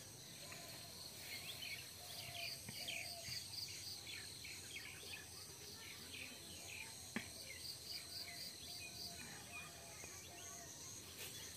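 Faint field ambience: insects chirping in a quick, even pulse that stops about nine seconds in, with scattered short bird chirps and a single sharp click a little after seven seconds.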